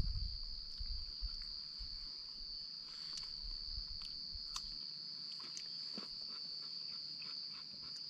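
Insects giving a steady, single high-pitched drone, with scattered faint clicks and a low rumble that dies away about halfway through.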